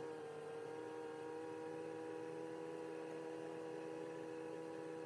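Faint, steady hum of a tractor heard from inside its cab while driving, a few held tones with no change in pitch.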